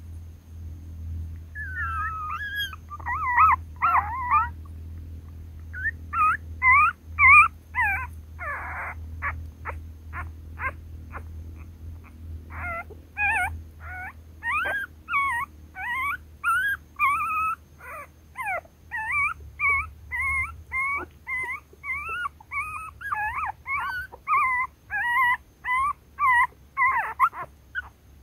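Young puppies whimpering and squealing in their den. Their high, wavering cries start sparse and come almost without a break in the second half.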